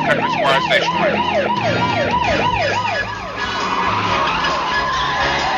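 Emergency-vehicle siren in a fast yelp, about four rising-and-falling sweeps a second, that breaks off about three seconds in, leaving a fainter wavering siren tone.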